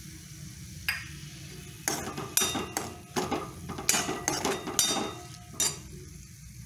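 Steel spoon scraping and clinking against a steel kadhai as chicken pieces are stirred, a single knock about a second in, then a quick run of strokes from about two seconds in until near the end. A faint sizzle from the hot oil and soy sauce runs underneath.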